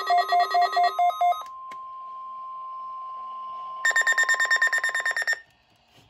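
Weather alert radios going off for a weekly test. A pulsing two-tone alarm beeps about four times a second and stops about a second and a half in, just after a radio's Weather/Snooze button is pressed. A long steady alert tone follows, and near the end a second radio adds about a second of faster, higher beeping that cuts off.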